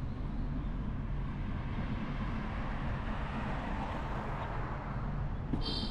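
Steady low rumble of a vehicle in motion. A short high-pitched tone sounds near the end.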